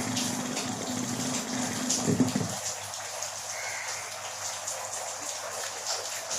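Home theater speaker giving a steady low mains hum as tweezers touch the input of an amplifier transistor. The hum stops about two and a half seconds in, leaving a hiss with faint clicks. The hum on touch is the test that shows the transistor is working.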